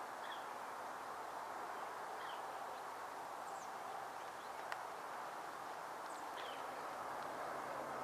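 Faint outdoor ambience: a steady low hiss with about five short, high bird chirps spread through it, and a single sharp click about halfway through.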